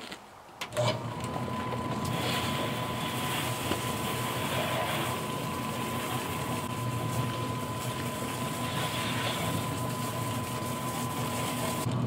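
Electric motor of an automatic stainless-steel drum chicken plucker switched on with a click about a second in, then running steadily with a hum and a thin high whine.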